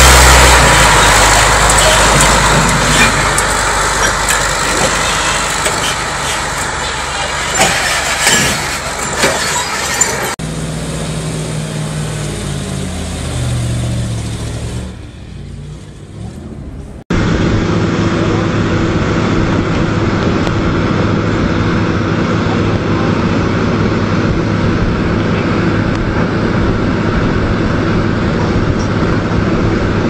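Heavy diesel engines across several spliced clips. First, a big eight-wheeled tractor truck runs hard through sand. After a sudden cut, an engine works while the level sags. After a second sudden cut about halfway through, excavator engines drone steadily.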